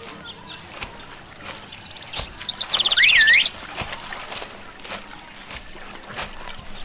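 A bird singing loudly: a fast run of high chirps for about a second and a half, ending in a note that swoops down and back up. A faint outdoor background with a few soft knocks runs under it.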